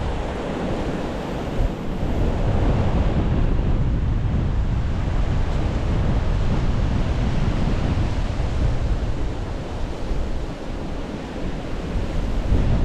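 Strong, gusting wind howling, surging and easing, with heavy wind buffeting on the microphone. It is a gale of at least 80 km/h by the walker's estimate.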